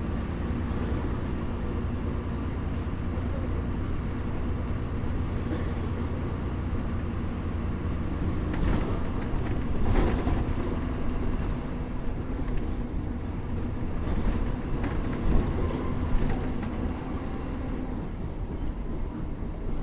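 Bus engine hum with road rumble as the bus drives, a steady low drone. A sharp knock or rattle sounds about halfway through, and a few louder bumps follow later.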